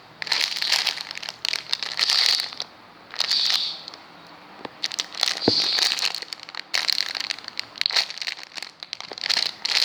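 Plastic packaging of a squishy toy crinkling as it is handled, in irregular crackly bursts with short pauses between.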